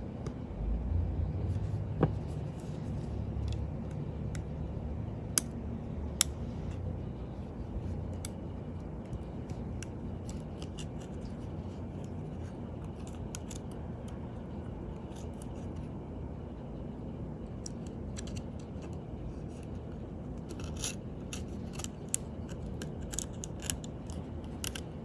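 Small, sharp metallic clicks and light scraping of fine watchmaker's tools and tweezers working on a wristwatch case and movement while fitting its battery, scattered through, with a quick cluster of clicks near the end. A low steady hum runs underneath.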